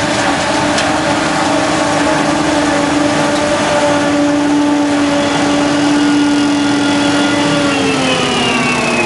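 Diesel engine of large farm machinery running loud and steady, its pitch falling over the last second or so.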